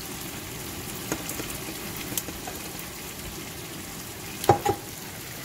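Spiced masala frying in oil in a pot, a steady sizzle, with two quick clinks about four and a half seconds in.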